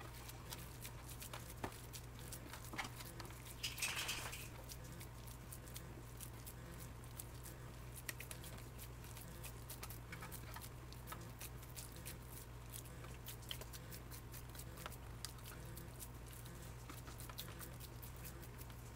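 Hands patting and pressing raw ground-beef meatloaf mixture into shape in a glass baking dish: faint, scattered soft pats and squishes over a steady low hum. One brief louder noise comes about four seconds in.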